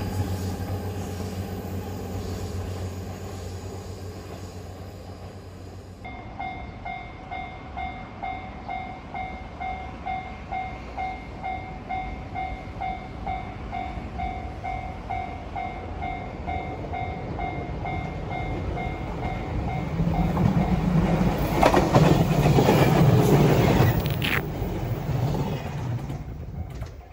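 JR Kyushu YC1 hybrid railcar running, its engine drone easing off over the first few seconds. Then a railway level-crossing bell ringing at about two strokes a second as a train comes up, and the train passes with a loud rumble and clatter of wheels near the end.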